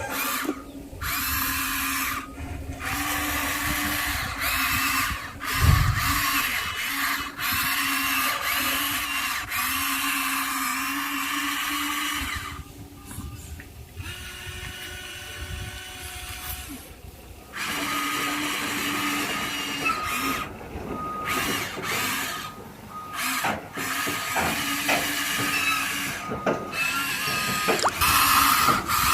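Small electric motors and gearboxes of radio-controlled construction models whining in stop-start runs of a few seconds each, with a low thump about six seconds in.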